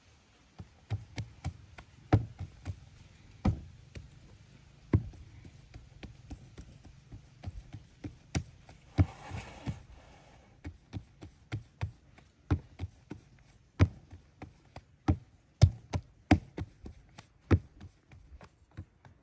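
Knife point scoring lines into flatbread dough, tapping on the metal tray beneath with a string of sharp, irregular clicks, roughly one or two a second. A short hiss about nine seconds in.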